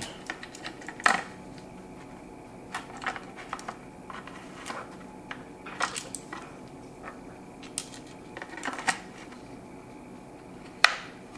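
Irregular light clicks and knocks as parts of a Stihl MS271 chainsaw's fuel tank and handle assembly are handled and worked loose by hand, with a sharper knock near the end.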